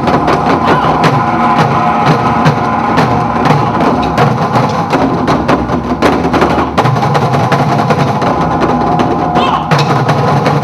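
Dance accompaniment music with rapid, dense percussion strikes over sustained low and mid tones.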